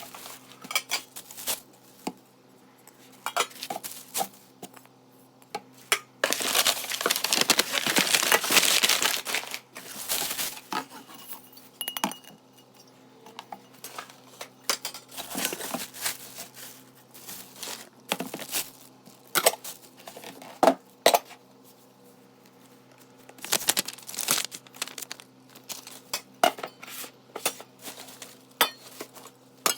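Stainless steel pots, pans and lids clinking and knocking as they are handled, with packaging being torn and crinkled; the loudest rustling comes about six to ten seconds in, with shorter bursts later.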